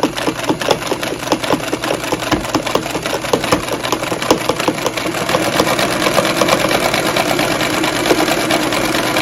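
Singer 306W swing-needle sewing machine running, stitching a cam-driven decorative zigzag pattern through cloth as its needle bar swings side to side. A steady, rapid ticking of the stitch mechanism that grows slightly louder.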